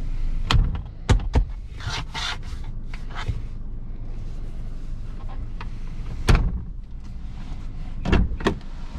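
Front passenger seat of a Honda Capa being folded flat: a few sharp clacks from the seat release and hinge, a rustle of fabric as the seatback goes down, and one loud click past halfway. Near the end come two clicks of the driver's door latch opening, all over a low steady hum.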